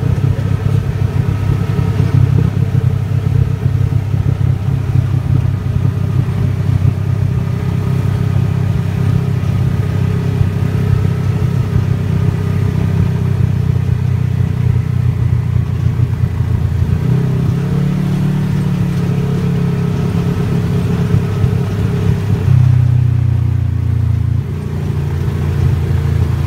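ATV engine running steadily on a dirt trail, heard from the rider's own machine. Its pitch steps up about two-thirds of the way in and shifts again a few seconds later.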